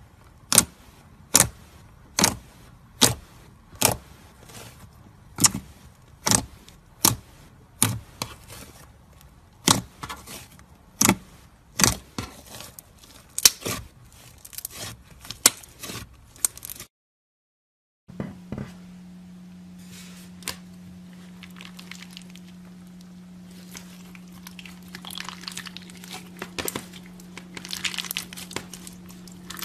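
Thick pink slime poked and pressed by fingertips, giving sharp popping clicks a little under a second apart. After a short break, a steady low hum under soft crackling and crinkling that builds near the end as clear slime full of small plastic bottle charms is squeezed.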